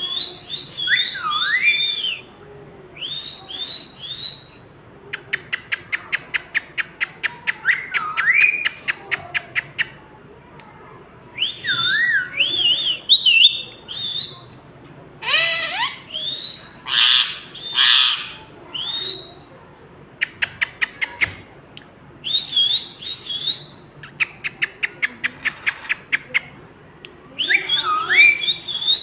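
Ring-necked parakeet calling with high, sharp whistles that rise and fall in pitch, broken by runs of rapid even clicks. There are a few harsh squawks about halfway through.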